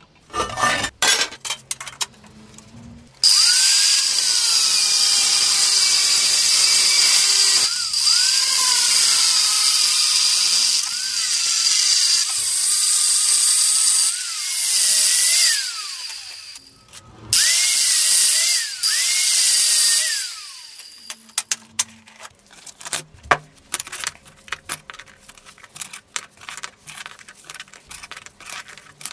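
Angle grinder with a thin cut-off disc cutting through a steel circular saw blade: the motor's whine sags in pitch each time the disc bites into the steel and climbs back as it eases off. It starts a few seconds in, stops briefly once and runs again, then shuts down for the last several seconds, which hold a run of light clicks and clinks of the cut steel strips being handled.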